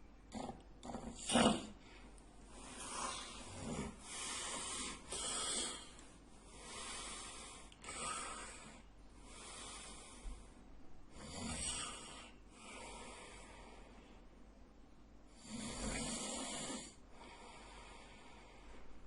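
A sleeping man snoring: an irregular run of noisy snoring breaths, each lasting about half a second to a second and a half, the loudest about a second and a half in.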